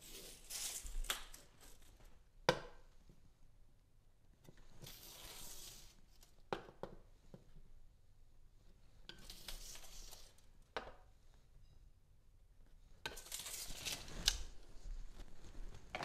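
Rustling and scraping handling noises with a few sharp clicks, as a steel tape measure is held against a wall and light pencil marks are made along it.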